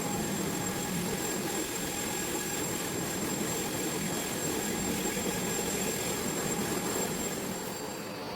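Vacuum cleaner running steadily on carpet, its motor giving an even roar with a faint steady whine, easing off slightly near the end.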